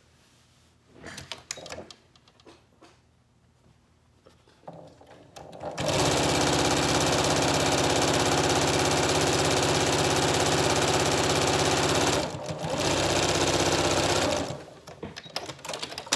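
Janome sewing machine stitching, starting up about five seconds in and running steadily, easing off briefly about twelve seconds in, then running on and stopping near the end. Light handling sounds of fabric being positioned come before and after it.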